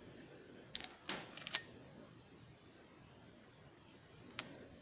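Light metallic clinks of a small hand-formed brass funnel knocking against a brass 50 caliber BMG shell casing: a quick run of three clinks about a second in and one more, short and ringing, near the end.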